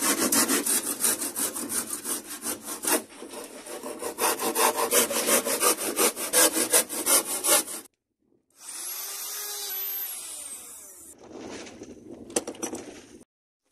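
Hand saw cutting through plywood in fast back-and-forth strokes, stopping abruptly about eight seconds in. A quieter sound with slow rising and falling tones follows, then a few more quick strokes near the end.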